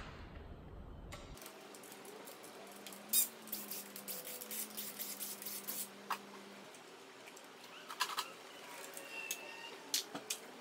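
Hand tools and metal engine parts clinking and knocking while an LS V8's inlet manifold is unbolted and lifted off, with several short sharp knocks scattered through.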